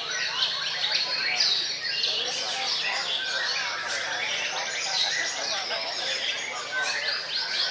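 White-rumped shamas (murai batu) singing together: many rapid, varied phrases overlapping with no pause.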